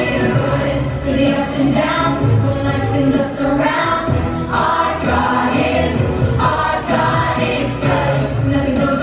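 Children's choir singing a song with instrumental accompaniment.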